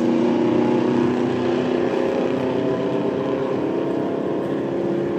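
Engines of two 4x4 drag racers running flat out down the strip, a steady drone that holds its pitch.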